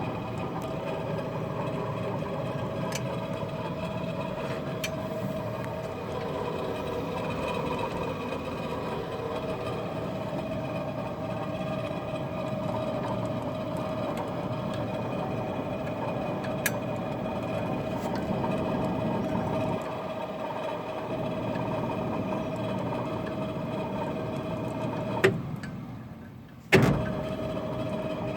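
A 62-year-old Frista washing machine running, a steady mechanical hum with a held whine. Near the end a click, the motor runs down for about a second, then starts again with a thump.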